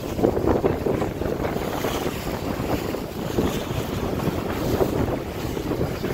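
Wind buffeting the microphone over the rush of water along the hull of a sailboat under way in open sea, the noise rising and falling in gusts.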